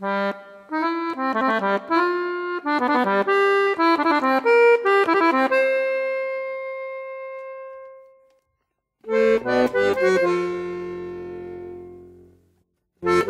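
Accordion playing the instrumental introduction of a folk song: a quick run of melody notes ending in a long note that fades away, a short silence, then sustained chords that also fade out. A new phrase begins right at the end.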